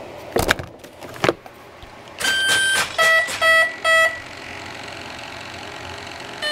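A few sharp clicks from handling the battery connector, then the startup tones of an RC airplane's electronic speed controller, sounded through the electric motor: one long beep followed by three short, evenly spaced beeps, the signal that it is powered and armed.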